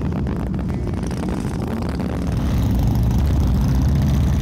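Several Harley-Davidson V-twin motorcycles riding off and passing by, their engines running steadily and getting louder about halfway through as one comes close.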